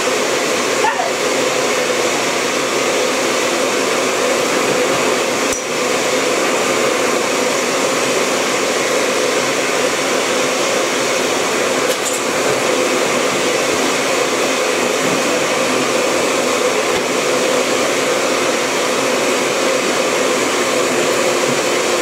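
Canister vacuum cleaner running steadily, a constant rushing hum, with two brief knocks, one about five seconds in and another about twelve seconds in.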